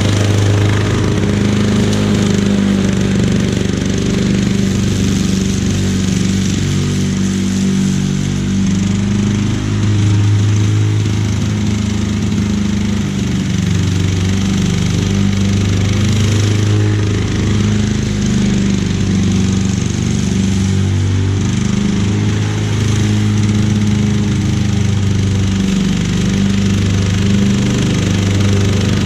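1991 Lawn-Boy M series walk-behind mower's two-stroke engine running steadily while cutting grass with its rear bag on, its pitch dipping and recovering slightly as the load changes.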